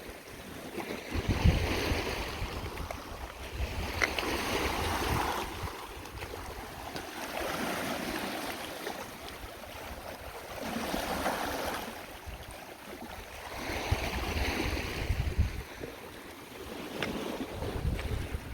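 Lake Superior waves washing in on a rocky shore, swelling and fading every few seconds, with wind buffeting the microphone.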